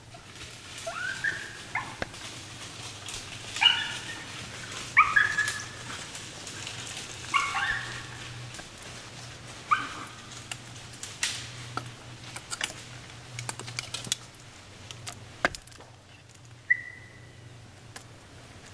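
Coyote calling in a series of short, high, pitch-bending calls every second or two, dying away after about ten seconds.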